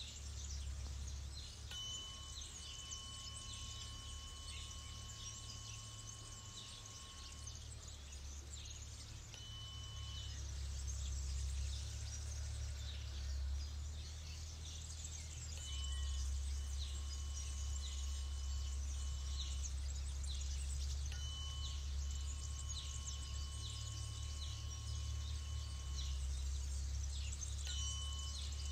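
Tuning fork struck about five times, each strike ringing a clear, steady tone for one to six seconds before it stops, over wind rumble on the microphone.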